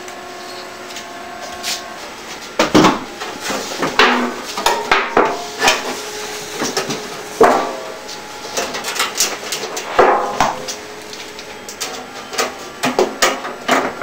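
Irregular knocks, clicks and clinks of tools and parts being handled, some with a short metallic ring.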